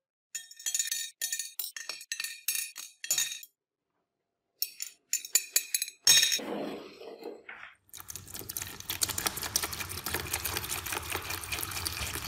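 Small rusty steel screws, washers and pins clinking against a glass baking dish as they are dropped in with tweezers, in quick runs for the first six seconds. From about eight seconds, vinegar is poured from a glass jug and splashes into the dish steadily.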